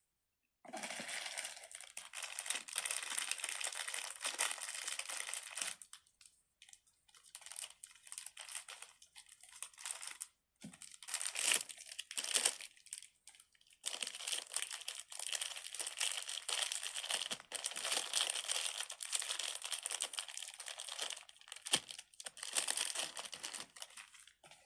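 Plastic packaging crinkling and rustling as it is handled, in long stretches broken by short pauses.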